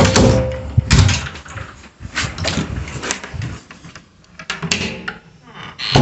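Handling noise from a handheld camera being turned and carried about: rustling and a series of knocks, the loudest about a second in.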